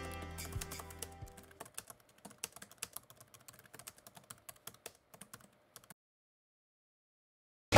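Computer keyboard typing: irregular, quiet key clicks for about four seconds, then stopping. Background music fades out over the first second and a half, and loud band music cuts in right at the end.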